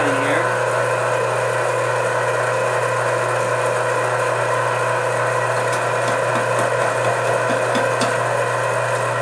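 Electric meat grinder running with a steady hum as pork is pushed through it and ground.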